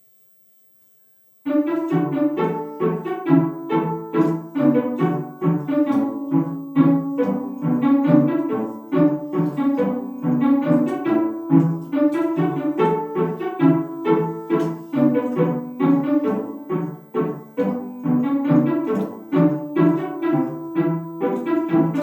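Background music begins about a second and a half in: a piano-and-strings instrumental playing a bouncy, rhythmic tune.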